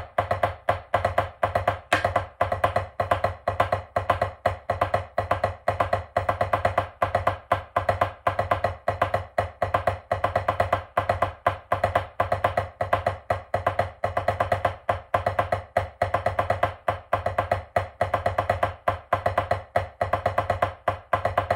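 Drumsticks playing a steady, unbroken stream of even sixteenth-note taps on a drum: a sixteenth-note timing warm-up exercise played without a check pattern.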